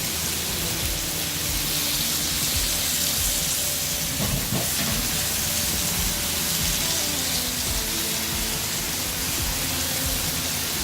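Marinated chicken pieces sizzling steadily in a hot, oiled grill pan, with soft background music underneath.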